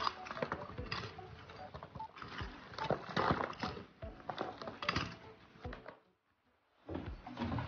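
A hoe chopping and scraping into packed dirt and stony rubble, pulling clods into an iron basket: a run of irregular knocks and gritty scrapes. It breaks off briefly about six seconds in, then starts again.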